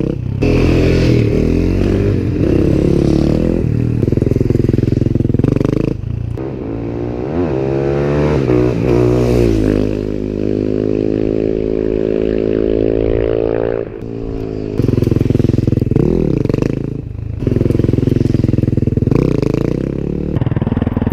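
Supermoto motorcycle engine being ridden hard, revs rising and falling over and over, held steady for a few seconds in the middle before jumping again.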